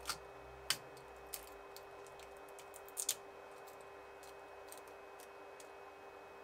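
Printed nylon part clicking as it is gripped and pried off the 3D printer's build plate: a few sharp clicks in the first second and a half and a quick double click about three seconds in, over a steady faint hum.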